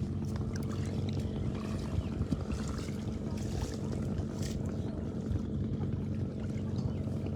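A small engine running steadily at an even speed, a low constant drone with light clicks and splashes over it.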